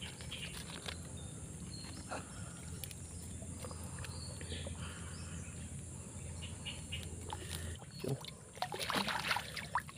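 Soft water sloshing and splashing around a person wading waist-deep while handling and lifting a large hooked fish, over a low steady hum that stops about eight seconds in. A few louder splashes come near the end as the fish is hoisted from the water.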